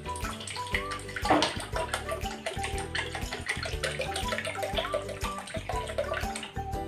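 Mirin trickling in a steady stream from a bottle into a small ceramic bowl, with background music playing.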